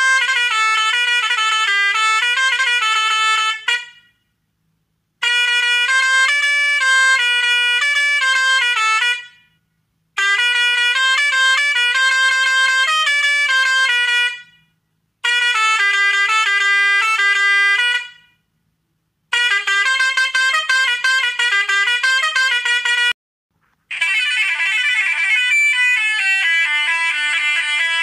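Indian truck's musical horn playing a short melody, sounded six times in a row with brief silences between, each a few seconds long. The last one is a warbling tone that slides up and down.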